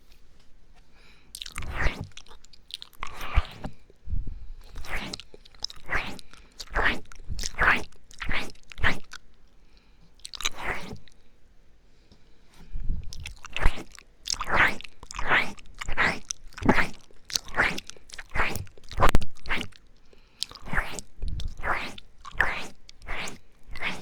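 Close-miked ASMR mouth sounds, the wet smacking and licking of ear-eating: a run of short wet smacks, about one or two a second, with a brief pause about halfway through.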